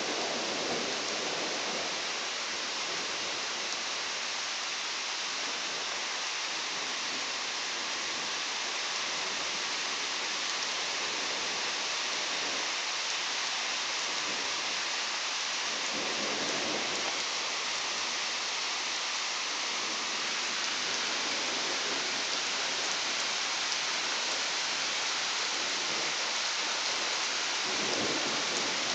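Steady rain falling, with thunder rumbling softly three times: near the start, about halfway through and near the end.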